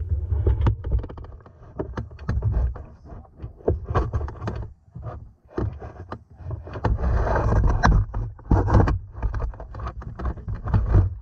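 Clothing rubbing and brushing against the camera's microphone: an irregular scraping rustle with muffled low thumps, loud and uneven throughout.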